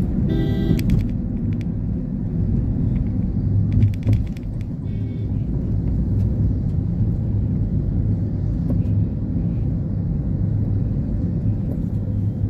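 Car cabin noise while driving on a highway: a steady low engine and tyre drone. A vehicle horn honks for about half a second right at the start, and a fainter honk follows about five seconds in.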